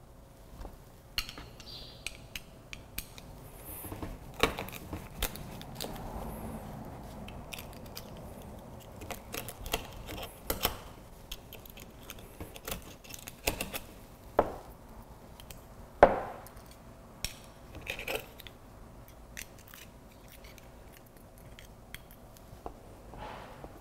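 Hand-shucking oysters: a steel oyster knife prying and scraping at the shells, with irregular clicks and knocks of shell against knife and cutting board. The sharpest knock comes about 16 seconds in.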